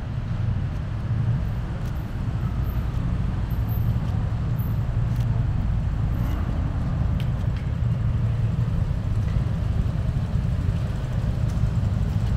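Steady low rumble of city road traffic, with no single vehicle standing out.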